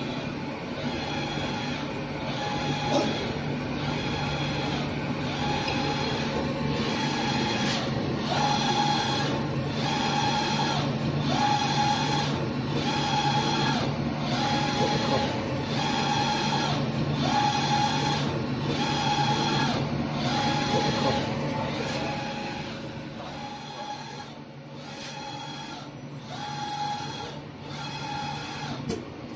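Automatic glue spray line for foam panels running: a steady low hum with a pulsing whine that repeats evenly, about once every second and a bit.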